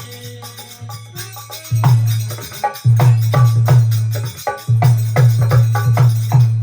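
Instrumental close of a live Marwari devotional bhajan with no singing: fast, repeated hand-percussion strokes over a steady low sustained tone, the percussion turning loud and dense about two seconds in.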